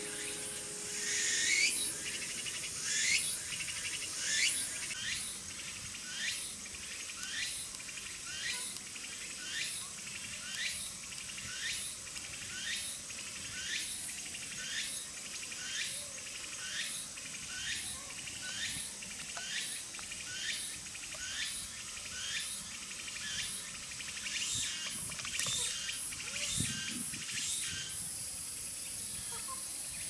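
A high call repeated evenly, about one and a half times a second, each note a quick falling sweep, over a faint steady high-pitched hum.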